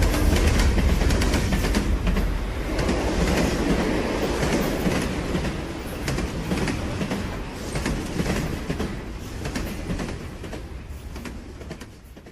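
A deep rumble with a rapid run of clacks and rattles, fading away gradually and dying out at the end.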